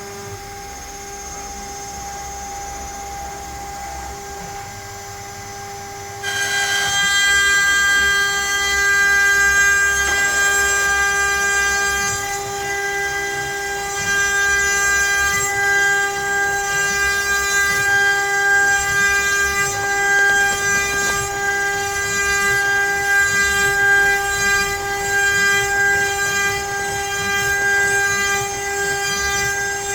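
CNC router spindle running with a steady high whine; about six seconds in, a louder, rougher cutting noise joins as the bit cuts into pine and carries on.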